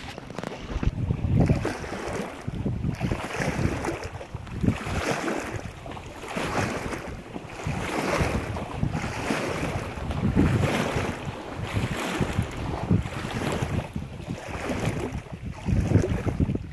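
Small river waves lapping and splashing against a rocky bank, swelling and falling in repeated surges about once a second, with wind rumbling on the microphone.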